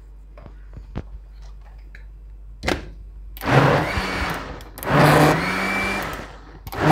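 Electric countertop blender pulsed in short runs to mix mango pulp with cream: after a few light clicks of the jar and lid being handled, the motor whirs up three times from about halfway through, each run about a second long.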